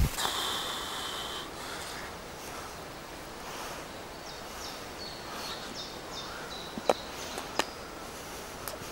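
Woodland ambience with a small bird singing high notes: one held note at the start, then a run of short notes a few seconds later. Two sharp clicks come about seven seconds in.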